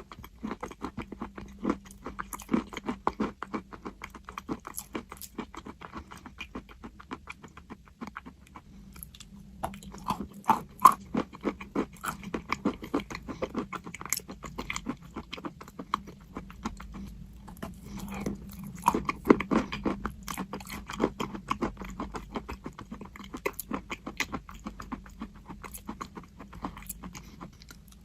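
A person chewing crunchy chalk close up: a dense run of dry crunches and clicks, with a short lull about eight seconds in.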